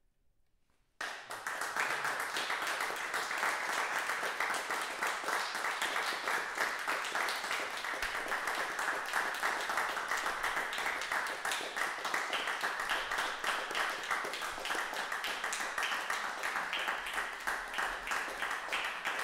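Audience applauding at the end of a performance: a dense crowd of clapping hands that starts suddenly about a second in and carries on steadily.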